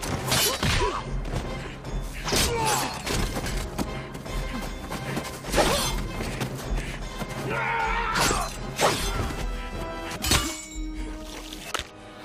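Action-film fight soundtrack: a dramatic music score under a string of sharp hits and crashes, about one every second.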